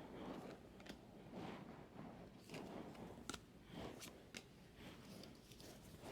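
Faint rustle and light ticks of baseball trading cards being handled and flipped through by hand.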